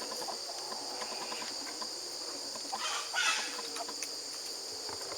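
Chickens clucking in short scattered calls over a steady high insect drone, with a brief harsh burst about three seconds in.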